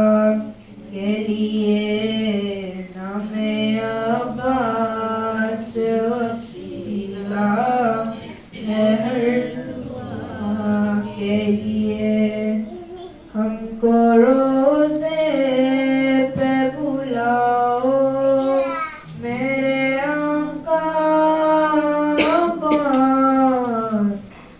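A boy chanting a mourning elegy solo into a handheld microphone, unaccompanied. He sings long, held melodic lines that waver in pitch, with short pauses for breath between phrases.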